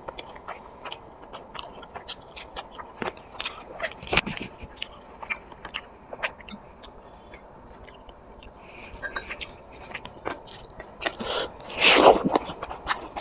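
Close-miked eating of a chicken curry and rice meal: irregular wet mouth clicks, biting and chewing, with one louder bite or crunch about twelve seconds in.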